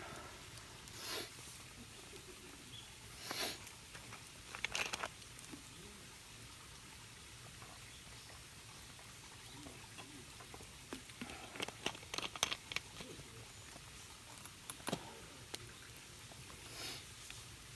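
Scattered rustles, brushes and light clicks of things being handled, coming in short irregular bursts with a busier cluster about two thirds of the way through.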